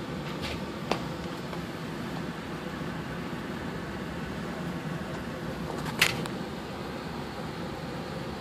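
Steady hum of running fans or air-handling machinery. A light tap comes about a second in and a louder knock about six seconds in.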